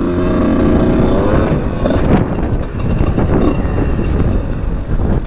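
Husqvarna SMS 125's two-stroke 125cc engine revving as the bike is ridden on a dirt track. Its pitch rises over the first second and a half, then it runs on rough and noisy, with wind on the helmet-cam microphone.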